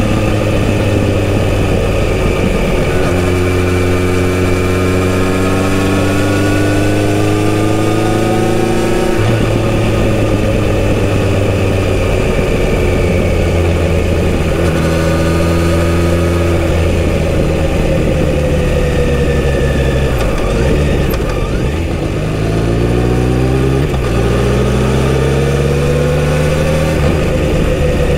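Kawasaki Z900RS inline-four through a full-system exhaust, riding in town. The engine note holds steady at cruising revs in stretches and rises and drops with throttle and gear changes. It eases off briefly about twenty seconds in, then climbs through several quick upshifts, each shift dropping the pitch before it rises again.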